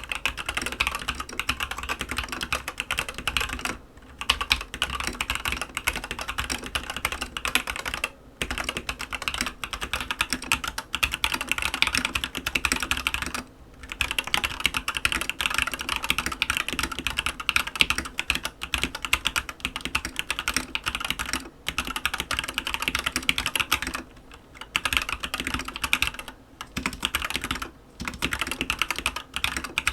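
Fast, continuous typing on an Aigo A100 mechanical keyboard with yellow switches: a dense stream of key clacks, broken by about seven short pauses.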